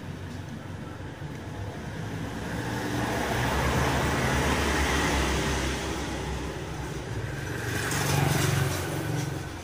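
Automatic scooter engine and CVT running, revved up and held for a few seconds starting about three seconds in, easing off, then revved briefly again near the end.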